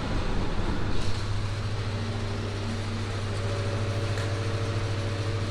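A distribution transformer humming: a steady low drone with a few higher overtones, which gets louder about a second in and then holds.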